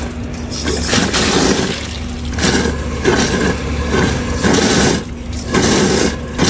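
Compressed air and cleaning fluid spraying through a car air-conditioning pipe and gushing out in repeated surges, flushing out dirty residue.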